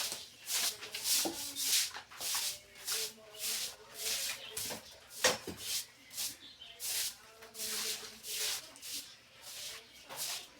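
Scrubbing strokes on a refrigerator's surface, a rhythmic rub about twice a second, with a sharp knock about five seconds in.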